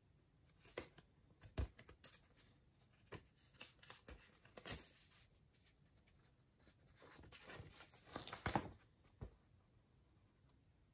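Paper rustling and crinkling as a printed instruction booklet is handled and its pages are turned, in scattered short bursts, loudest about eight and a half seconds in.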